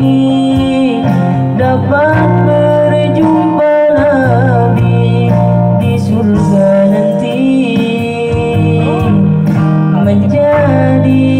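A man singing a sholawat-style devotional melody into a microphone, holding long notes with wavering ornaments, over guitar accompaniment.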